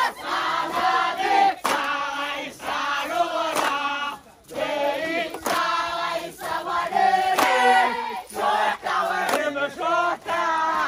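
A group of men and women chanting together in a traditional dance chant, with a sharp strike about every two seconds that keeps the rhythm.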